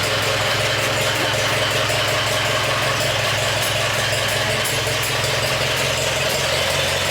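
Tractor engine idling steadily at a constant speed.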